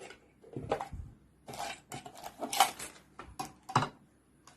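Parts and accessories of a new sewing machine being handled and set down: a run of clacks, clinks and knocks with short rustles, the sharpest about two and a half and nearly four seconds in.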